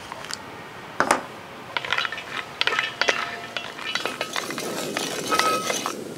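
Cashews dropped into a brass pan of hot ghee, then stirred with a wooden spatula. There is one sharp clink about a second in, then a busy run of clicks and scrapes against the metal pan as the nuts are roasted.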